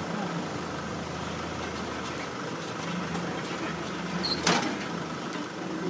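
Vehicle engine idling steadily, with a brief sharp swish about four and a half seconds in.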